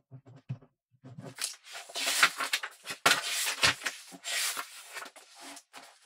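Ballpoint pen writing on paper. There are short, light strokes for about the first second, then a run of longer, louder scratching strokes for about four seconds.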